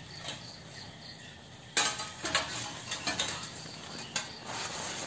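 Umbrella fabric rustling and the bare metal ribs of a small umbrella frame clinking and scraping as the cut canopy is pulled off. The handling starts about two seconds in as a run of irregular rustles and clinks.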